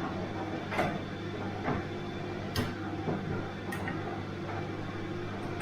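Bosch washing machine running: a steady motor hum with irregular knocks and clicks, a few of them sharp, about a second apart.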